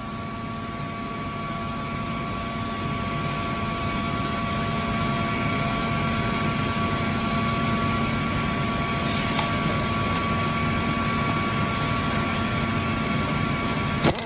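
Steady mechanical hum of a running machine, holding several fixed tones and slowly growing louder, with a short rattling burst near the end.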